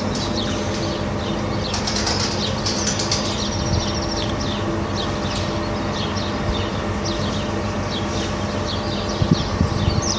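Small birds chirping and twittering in repeated short high calls, heaviest in the first few seconds and again near the end, over a steady low background rumble.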